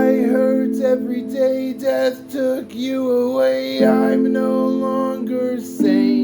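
Music: a song with held guitar chords changing every couple of seconds and a bending melody line over them, without sung words.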